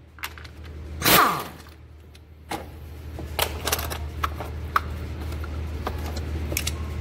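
A drill driving a socket on a valve cover bolt: a short burst about a second in, its pitch falling as it spins down. After that come scattered light metallic clicks and taps as bolts and engine parts are handled.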